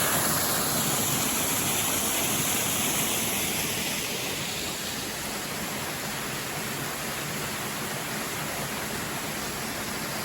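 Steady rush of a small waterfall on a mountain stream, easing somewhat over the first few seconds and then holding level.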